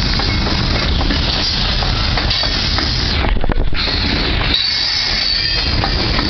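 Freight train of gondola cars rolling past close by: steel wheels running on the rails with scattered clicks. The low rumble drops away about three-quarters through, leaving a thin high squeal from the wheels.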